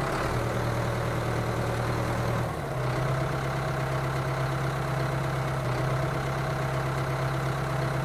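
Tractor engine running steadily with a low, even note that shifts slightly about two and a half seconds in.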